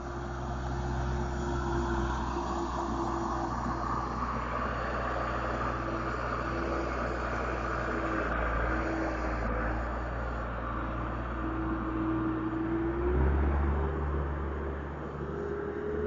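Heavy asphalt paving machinery running steadily: a low engine hum under a steady whine, which steps slightly higher about 13 seconds in.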